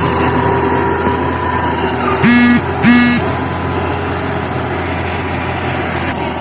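Two short horn toots about half a second apart, a little over two seconds in, over a steady engine-like hum.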